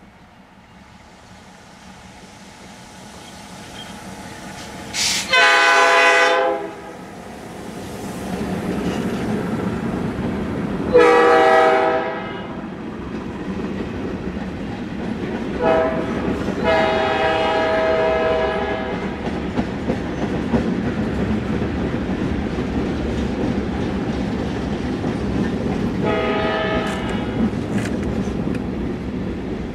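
Alexander Railroad diesel locomotive #12 approaching, the sound of the train on the rails growing louder over the first several seconds. Its multi-tone horn sounds the grade-crossing signal, two long blasts, a short one and a long one, which warns of a road crossing. Another long blast comes later, and a further one starts near the end.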